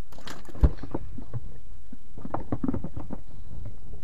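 Knocks and clatter of handling gear aboard a small wooden fishing boat, with one heavy thump about half a second in, over a steady low rumble of wind and water on the boat.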